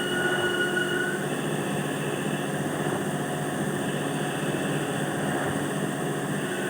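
A machine running steadily with a hum, with a high whine that cuts out about a second in.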